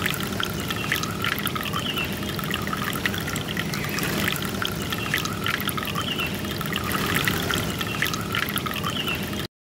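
Aquarium water bubbling and trickling steadily around an aerator-driven DIY bottle filter, full of small bubble pops. It cuts off suddenly near the end.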